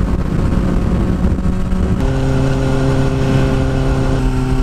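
Kawasaki Ninja ZX-6R inline-four engine running under way at road speed, with wind rush on the onboard microphone. About two seconds in, the engine note steps down suddenly to a lower, steady pitch.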